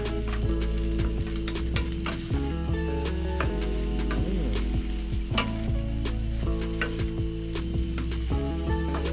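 Fried rice sizzling in a granite-coated non-stick wok while a wooden spatula stirs and turns it, with frequent sharp clicks and scrapes of the spatula against the pan.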